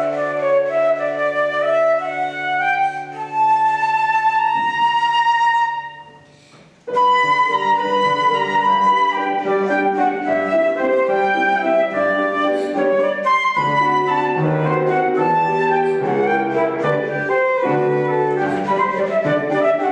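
Flute playing a waltz melody, with a brief break about six seconds in before the playing resumes.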